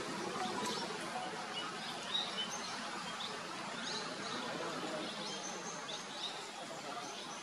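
Forest ambience: a steady background hiss with scattered short bird chirps and whistles throughout.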